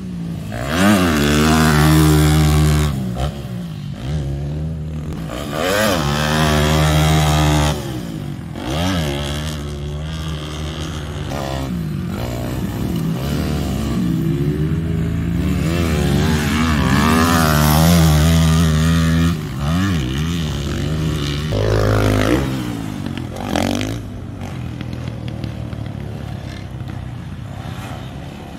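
YCF 190 pit bike's single-cylinder four-stroke engine revving hard out on the track, climbing in pitch through each gear and dropping off sharply as the rider shuts the throttle, again and again. Near the end come two short throttle blips, then the engine goes on quieter and more distant.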